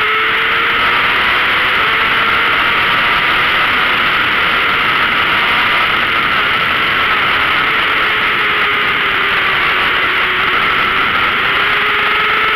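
Heavy wind rush over an onboard camera at racing speed, with a 600cc sport bike's engine running at high revs underneath. The engine note holds high, sags a little and climbs again near the end.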